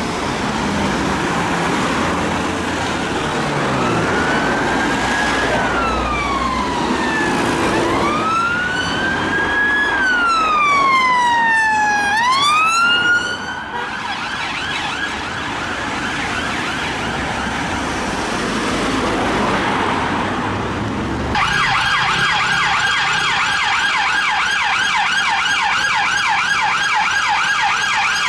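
UK police car sirens over road traffic. First a wail rises and falls slowly, then, after a break, a fainter fast warble. From about two-thirds of the way through, a loud rapid yelp runs several sweeps a second.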